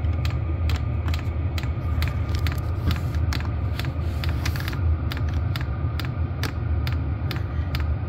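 Vevor diesel air heater running at a good burn: a steady low combustion rumble with a faint steady whine, and the fuel dosing pump ticking evenly about two to three times a second. The combustion chamber has just been cleaned of soot.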